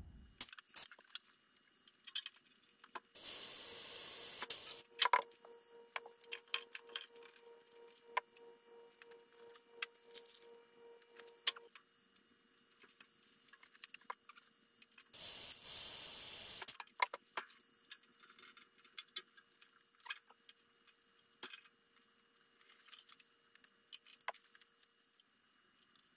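Scattered clicks and taps of hand tools and aluminium rivet parts on a workbench, with two hisses of compressed air, each about a second and a half long, a few seconds in and again midway. A faint steady hum runs under most of it.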